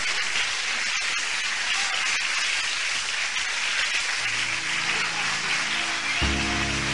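Audience applause: a dense, steady clapping. Music fades in under it about two-thirds of the way through, with a louder chord near the end.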